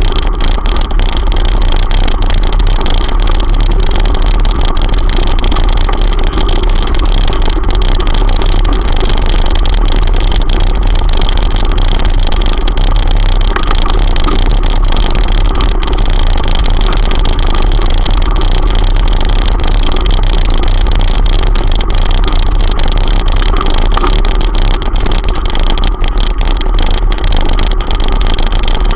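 Loud, steady wind rush on the microphone of a handlebar-mounted camera moving along a gravel track, heaviest in the low rumble, with the ride's rolling noise under it.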